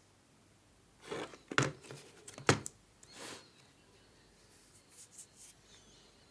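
Packaging being handled and opened by hand: rustling with sharp clicks, two loud snaps about one and a half and two and a half seconds in, then a few faint ticks near the end.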